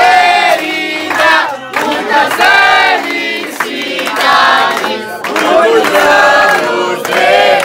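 A crowd of party guests singing together loudly, most likely a birthday song, with hand clapping. The singing breaks off briefly about two and five seconds in.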